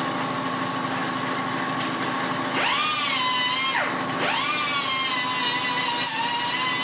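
Small handheld rotary power tool running at high speed at the drilled hole in a steel propane tank, a steady high whine over a rough grinding noise. Its whine swoops up about two and a half seconds in, then drops and comes back up to speed about a second later.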